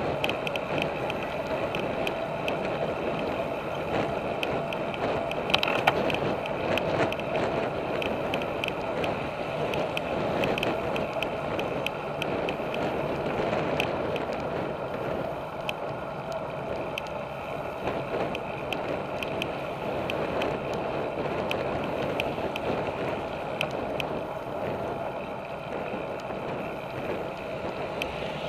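Road bicycle riding along paved road, picked up by a handlebar-mounted action camera: steady tyre and road noise mixed with wind, with many small ticks and rattles.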